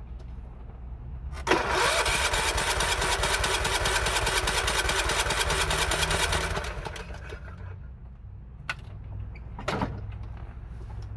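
John Deere 16 HP riding mower engine turned over by its electric starter for about five seconds, cranking with a fast pulsing beat without catching. After it stops there is a sharp click and then a single knock.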